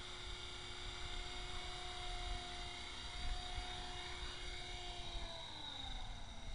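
An EXI 450 Pro electric RC helicopter's motor and rotors whine steadily in flight. About five seconds in the pitch falls as the throttle comes down for landing.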